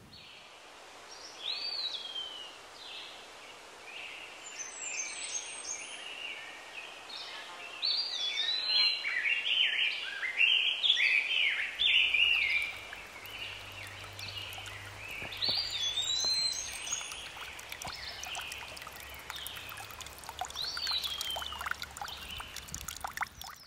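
Small birds singing and calling in short repeated chirping phrases, over a steady trickle of water running under ice. A faint low hum comes in about halfway.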